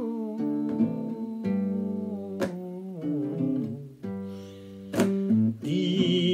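Acoustic guitar playing a slow accompaniment between sung lines, a chord strummed about every two and a half seconds and left ringing, with the notes shifting in between.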